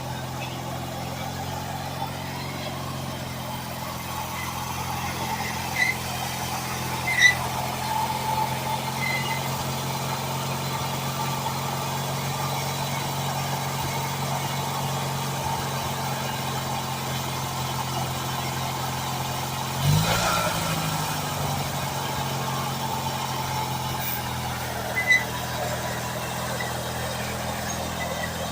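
A small engine running at a steady speed, with a sudden knock and a brief dip in pitch about twenty seconds in.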